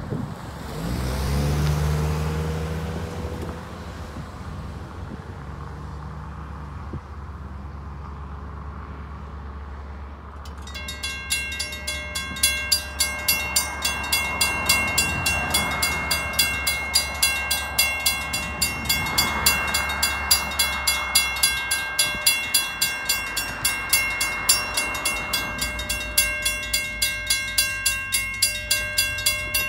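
Railroad grade-crossing warning bell starts about a third of the way in and rings in rapid, evenly spaced dings as the crossing activates. Before it, a road vehicle passes with a low engine hum whose pitch drops as it goes by.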